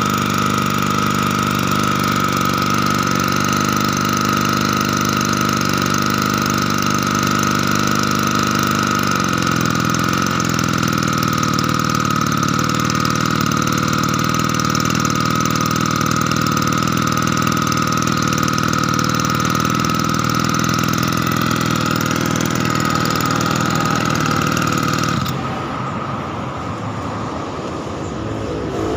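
Small two-stroke engine of a 1-inch water pump running steadily at high speed, with a steady high whine over it. About 25 seconds in it slows and goes quieter, running unevenly at a lower speed.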